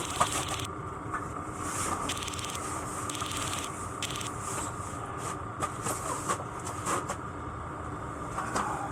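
Steady whirring hum of a diesel heater running in an ice-fishing shelter, with scattered light clicks and rustles of handled gear.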